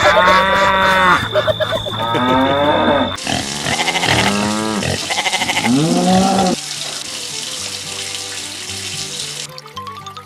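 A series of drawn-out, moo-like animal calls, each rising and then falling in pitch, overlapping with one another. About six and a half seconds in they stop, and background music with steady held notes carries on.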